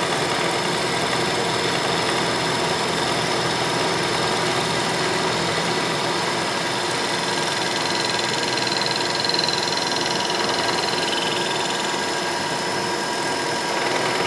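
Milling machine spindle running steadily while an end mill cuts a pocket in a block of white HDPE marine board (Starboard), with a steady motor hum and a faint high whine over the cutting noise.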